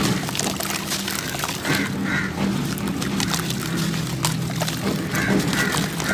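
Dry sand or dirt crumbling with dense crackling, joined by short duck-like calls several times.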